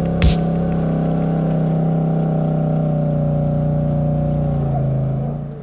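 2019 Polaris HighLifter 850 quad's engine running at a steady speed, with one sharp knock about a quarter second in. Near the end the pitch drops slightly and the sound cuts off.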